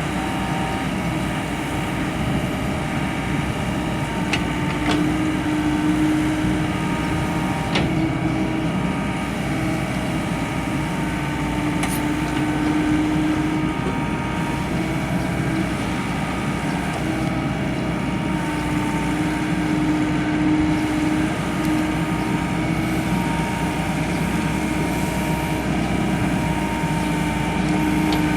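Diesel engine of a 2003 Volvo EW55 wheeled excavator running steadily, with a steady whine that swells and fades every few seconds and a few light clicks.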